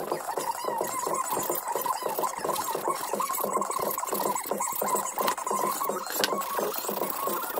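Needle file rasping in quick, even strokes between the cast aluminium cooling fins of a Malossi cylinder head, deburring the casting flash.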